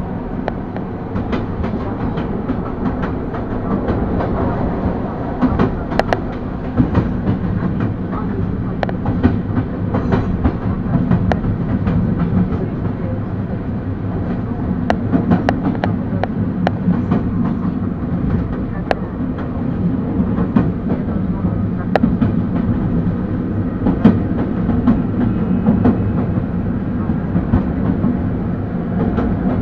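EP2D electric multiple unit running along the track: a steady low rumble of wheels and running gear, with irregular sharp clicks from rail joints and points.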